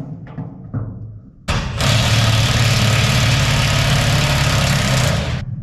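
Impact wrench running in one steady burst of about four seconds, loosening a blade's retaining nut through a socket; it starts and stops suddenly, after a few quieter knocks.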